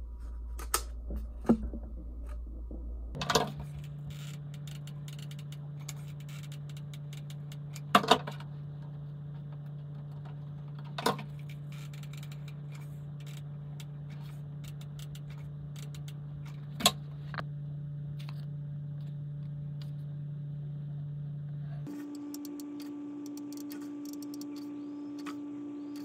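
A few sharp, isolated clicks and taps from hands handling small parts on a desk (wire mesh, foam frames, a caulking gun), over a steady low hum that shifts in pitch twice.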